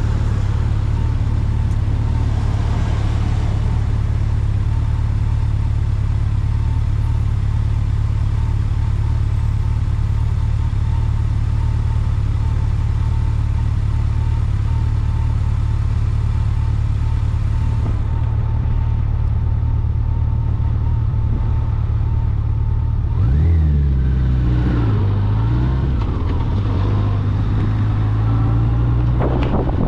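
A road vehicle being driven: a steady low engine and road drone. About three-quarters of the way through, the engine note drops and then climbs again, as when slowing and speeding back up.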